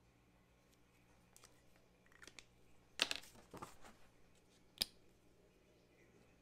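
Small paper cards handled and shuffled on a desk: a few light ticks, then a brief loud rustle about three seconds in, followed by a single sharp click.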